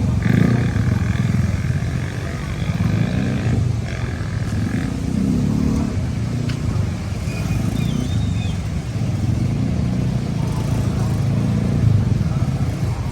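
Motor vehicle engines running on a street, the engine note rising and falling, in traffic that includes motorcycles.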